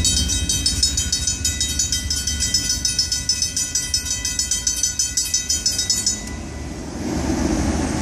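Griswold mechanical bells on a railroad crossing signal ringing fast and evenly, about five strokes a second, over the low rumble of the freight train pulling away. The bells cut off about six seconds in as the gates go up, the sign that the train has cleared the crossing, and road traffic starts moving.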